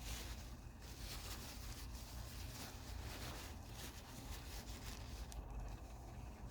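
Faint rubbing and rustling of a cloth or tissue wiping spilled lighter fluid off a metal Zippo hand warmer, over a low steady hum.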